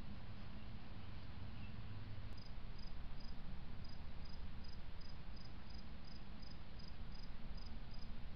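A cricket chirping in short, high, evenly spaced chirps, about two to three a second, starting a little over two seconds in. Under it runs a steady hiss and low hum.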